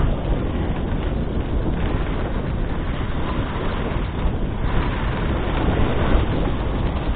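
Steady rushing noise of a dog sled moving over a snowy trail: the runners sliding on snow, with wind buffeting the microphone.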